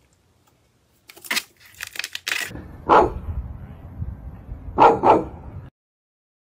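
Shar-pei dog barking: a single bark, then about two seconds later two quick barks. Before the barks there are a few faint clicks and rustles, and the sound cuts off suddenly just after the last bark.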